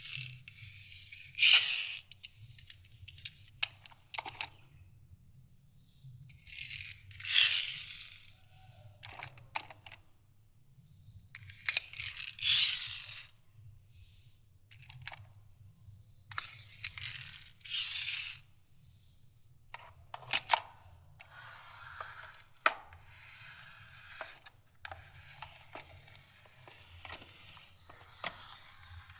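Toy cars being handled and pushed scraping across a hard surface. There are scraping bursts about a second long, roughly every five seconds, with light clicks and knocks between them.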